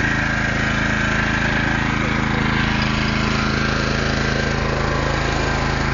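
An engine running steadily at one constant speed, a low hum with a noisy rattle over it.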